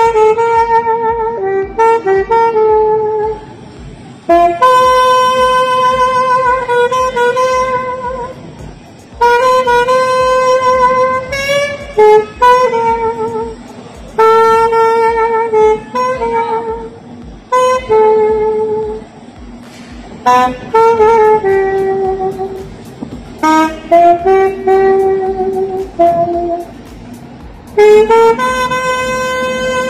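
Alto saxophone playing a slow melody of long held notes in phrases, with short breaks between phrases.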